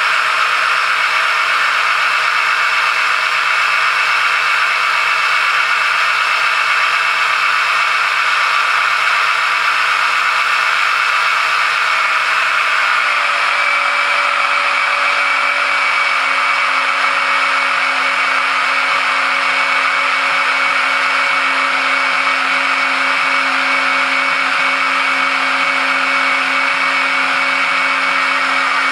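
Battery-powered electric oil transfer pump running steadily, sucking the engine oil up a tube fed down the dipstick tube. Its whine changes to a different tone about halfway through.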